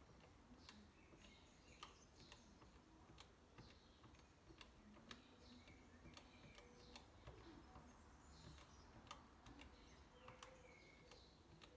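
Faint, irregular clicks of keys being pressed on an HP scientific calculator, about two a second.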